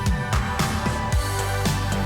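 Synthwave-style electronic music with a steady synth bass and a regular kick-drum beat, about two beats a second.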